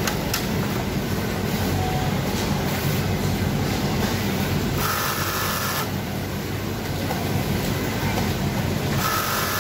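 Steady clatter and hum of industrial sewing machines running in a garment factory hall. A short higher-pitched whine comes twice, about five seconds in and again about nine seconds in.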